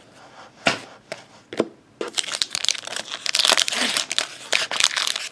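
A trading card pack wrapper being torn open and crinkled by hand: a few sharp clicks, then dense crackling from about two seconds in.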